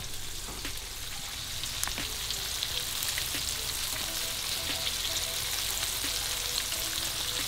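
Flour-dredged pieces of meat sizzling and crackling as they shallow-fry in hot oil in a frying pan. The sizzle grows louder a second or two in as more pieces go into the oil.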